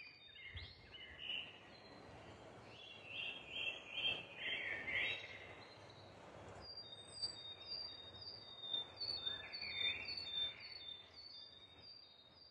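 Faint birdsong over a soft background hiss: scattered chirps, then in the second half a steady run of short, quickly repeated high notes.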